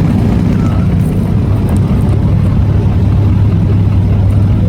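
Off-road race vehicle's engine running with a loud, steady low drone and rushing noise, holding an even pitch without revving up or down.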